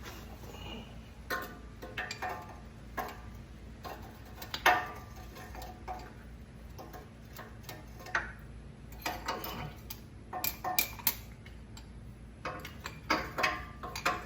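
Hand tools on metal under a car: irregular clicks, clinks and knocks, one louder knock about a third of the way in and quicker clusters of clicks later.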